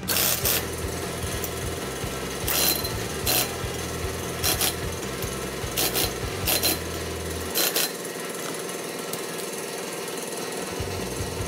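Cordless impact wrench hammering in about seven short bursts on the bolts of a motorcycle's rear-wheel sprocket. The first burst, at the very start, is the longest. A steady hum runs underneath.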